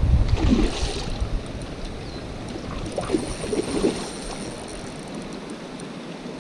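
Stream water running, with wind buffeting the microphone near the start and a few short splashes about half a second and three to four seconds in.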